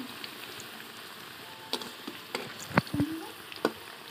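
Potato chunks sizzling as they fry in hot oil in a kadai, a steady hiss broken by a few sharp clicks and pops, the loudest a little before three seconds in.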